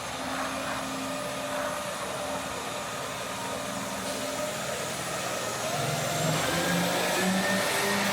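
Street traffic: a car engine running over a steady hiss of city noise, with an engine rising in pitch over the last couple of seconds as a vehicle speeds up.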